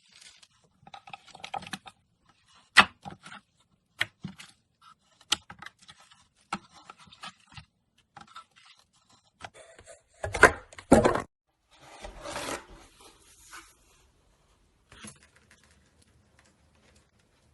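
Slime being squeezed, poked and stretched by hand: scattered sharp clicking pops, a louder run of squelching pops about ten seconds in, then a stretch of rubbing and squishing.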